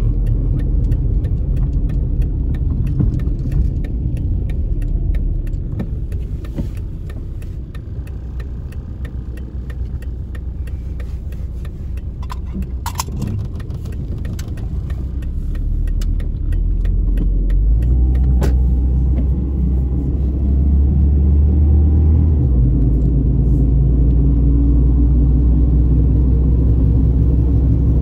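Plymouth Neon's four-cylinder engine and road noise heard from inside the cabin: a steady low rumble that eases off in the middle, then grows louder from about two-thirds of the way through as the car gathers speed.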